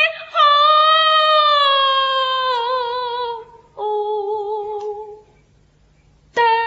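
Suzhou tanci-style singing: a high voice draws out long vowel notes with a wide vibrato. The first note sinks slowly for about three seconds and a second, lower note follows. After about a second's pause, another long note starts near the end.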